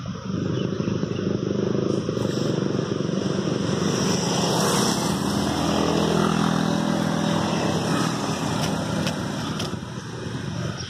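A motorcycle passing close by on the road, its engine and tyre noise swelling to a peak about halfway through, then fading as it rides away.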